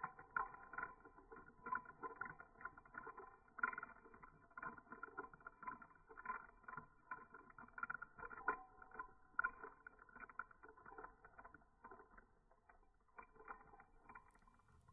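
Kaleidoscope being turned close to the microphone: a run of small irregular clicks and rubbing as the tube rotates and its colored pieces shift.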